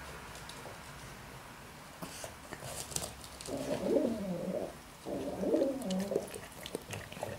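Rock pigeon cooing: two low, throaty coos of about a second each, around four and five and a half seconds in. Faint scattered ticks and scuffs accompany them.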